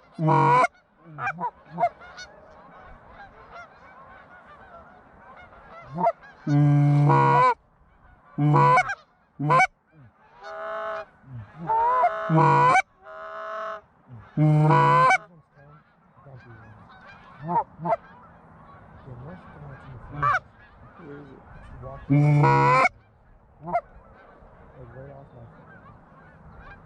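Canada geese honking: about eight loud, short honks and clucks, the longest bouts about six to seven seconds in and around twelve to fifteen seconds in, over a continuous chatter of fainter honks from a flock.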